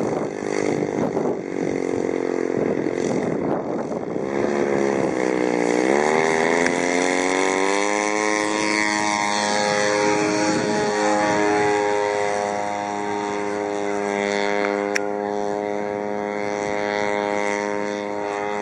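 Twin-cylinder engine of a radio-controlled Extra aerobatic model plane running with its propeller. Its pitch falls and climbs again about five seconds in, then holds fairly steady as the plane flies.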